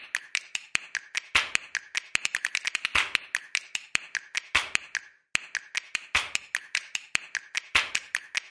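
Percussive background music: a fast run of snapping clicks over a heavier hit about every 1.6 seconds, with a brief break about five seconds in.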